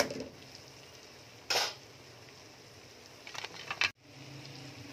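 A serving spoon scraping against a metal cooking pot of thick curry: one short scrape about a second and a half in, then a few light clicks and scrapes before the sound cuts off abruptly near the end.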